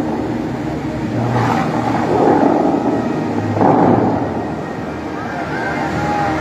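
Dubai Fountain's water jets shooting up with a rushing whoosh, swelling in two loud surges, about two seconds in and near four seconds. Sustained music plays underneath.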